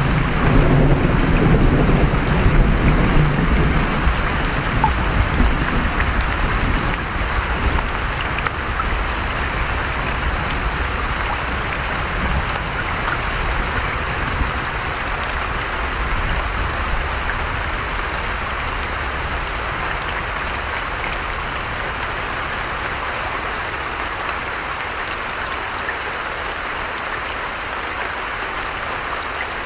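Steady rain falling, a dense even hiss. A low thunder rumble dies away over the first few seconds.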